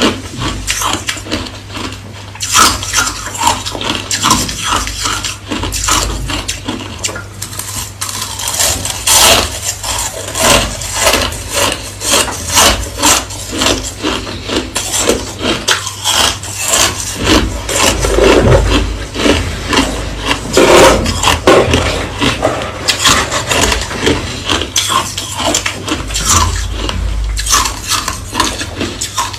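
Hard, clear crushed ice being chewed: a rapid, continuous run of crisp crunches, several a second.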